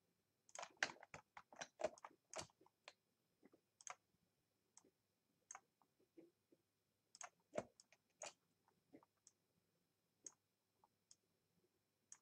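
Faint, sharp clicks of a computer mouse as the pen tool places anchor points, a quick run of clicks in the first couple of seconds and then single clicks every second or so.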